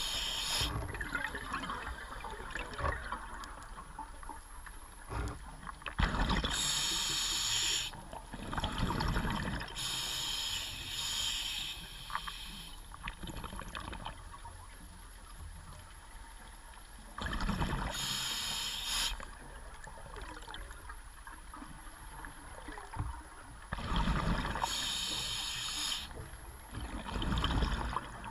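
Scuba diver breathing through a regulator underwater: a hiss on each inhalation, then a low bubbling rush as the exhaled air vents. The breaths come slowly, several seconds apart.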